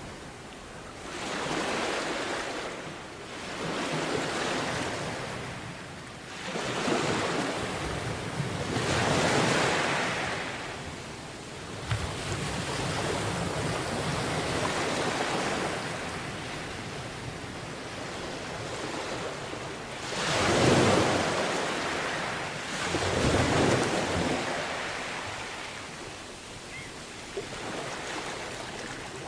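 Sea waves breaking and washing up on a beach, rising and falling in surges every few seconds, with the biggest pair of swells about two-thirds of the way through. Some wind noise on the microphone.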